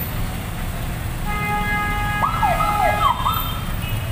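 Electronic vehicle siren sounding a steady tone from about a second in, then a few quick whoops that rise sharply and fall away, stopping near the end. Street traffic rumbles underneath.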